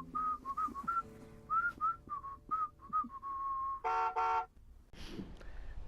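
The end of a theme song: a whistled melody of short notes over held guitar notes, closing with two short chord hits about four seconds in. After that only faint background noise is left.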